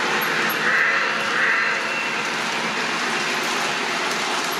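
Lionel O-gauge model train rolling along three-rail track: a New York Central steam locomotive and its passenger cars pass close by with a steady rumble of wheels, and two brief louder hisses come about a second in.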